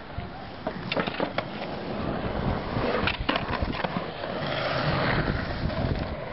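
Skateboard wheels rolling on rough asphalt and concrete, with several sharp clacks of the board hitting the ground in the first couple of seconds and again about three seconds in.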